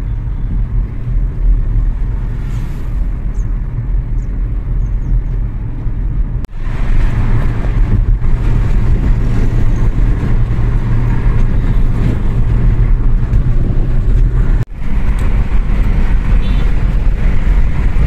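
Steady low road and engine rumble inside a Kia Seltos cabin moving at highway speed. The sound drops out briefly twice, about six and a half and fourteen and a half seconds in, and is louder after the first break.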